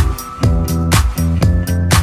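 Background music: an upbeat funk-disco track with a steady drum beat, about four hits a second, over a bass line.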